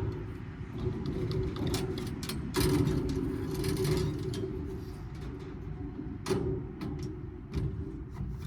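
Scrap metal clanking and rattling as an air-conditioning unit is taken apart, with sharp knocks scattered through and a longer burst of rattling about two and a half seconds in, over a steady engine-like rumble.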